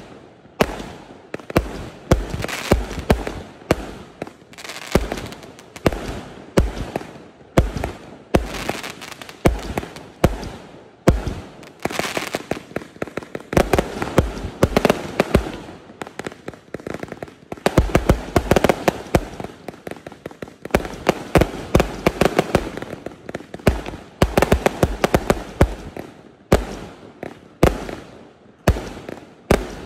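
A 0.8-inch, 368-shot fireworks cake firing non-stop: a rapid string of sharp bangs from shots launching and bursting, several a second, with crackle between them.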